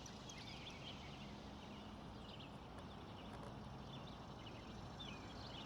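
Faint outdoor ambience with many short, high bird chirps scattered throughout.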